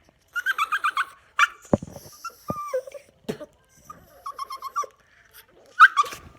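Yorkshire terrier making strings of quick, high-pitched yips and whines, with one call sliding down in pitch, in an annoyed reaction to air blown in its face. A few short knocks sound between the strings of calls.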